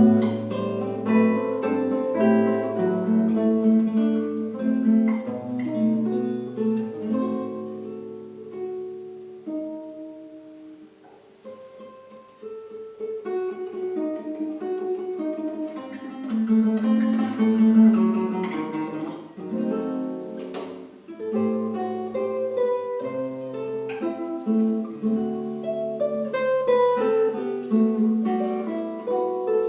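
Two acoustic guitars playing a duet: a plucked melody over a moving bass line. It drops to a softer passage about a third of the way in, and a few sharp strummed chords come near the middle.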